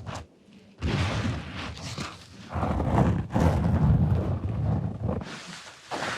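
Close-miked ASMR trigger sounds: dense handling noise full of small clicks, after a short pause about half a second in, heaviest and deepest in the middle.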